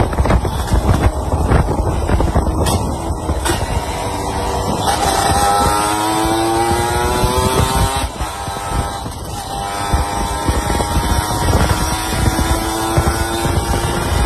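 Yamaha F1ZR's single-cylinder two-stroke engine running on a ride. Its pitch climbs as the bike accelerates from about five seconds in, drops back around the middle, then climbs again.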